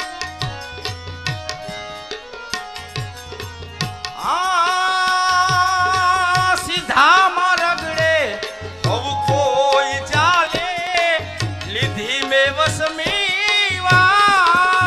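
Stage folk music with a steady tabla-like drum beat. From about four seconds in, a man sings long held notes with a wavering vibrato over the drumming.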